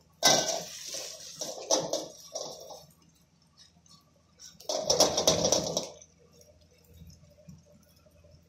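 Spatula scraping and pushing a cake of noodles frying in oil in a wok, in two bouts: several strokes over the first three seconds, then another bout about five seconds in. Between and after, the oil sizzles faintly.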